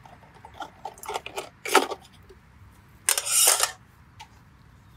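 A small folding backpacking gas stove being handled and set down on a camp table: a run of light metal clinks and rattles, a sharp clatter just under two seconds in, and a longer rustling scrape at about three seconds.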